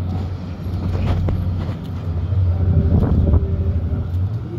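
Wind buffeting the microphone outdoors: a steady low rumble that swells about three seconds in.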